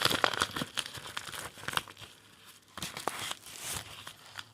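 Mail packaging being crinkled and torn open by hand, in irregular bursts of crackling and ripping, loudest in the first second.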